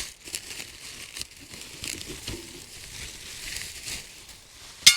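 Packaging crinkling and rustling with small scattered clicks as a newly boxed fire pit is unpacked, ending in a sharp clack.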